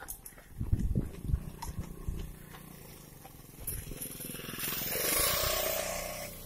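A motorcycle passes close by. Its engine swells to a peak about five seconds in, then fades. Earlier there are several low thumps.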